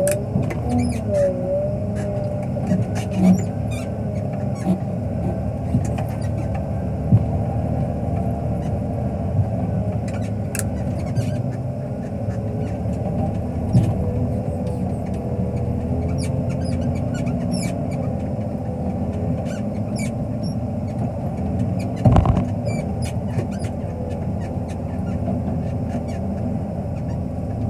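Wheel loader's diesel engine running steadily, heard from inside the cab, with a whine that wavers slowly in pitch. Scattered clunks and rattles come through, and a louder thump about 22 seconds in.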